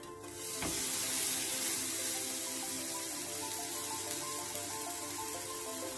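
Butter sizzling as a buttered bread sandwich is flipped onto a hot non-stick frying pan. The sizzle comes up loud just after the flip and eases slowly, with a single thump of the bread landing a little over half a second in. Background music plays throughout.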